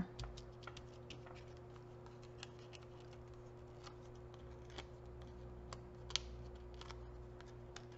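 Faint scattered clicks and light rustles of foam adhesive dimensionals being peeled off their sheet and pressed onto a cardstock panel, over a steady low hum.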